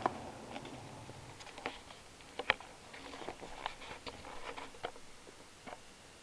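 Model train running on the track. The rumble of a train passing close fades out in the first second or so. Then come irregular sharp clicks from the wheels on the track as a model electric locomotive approaches.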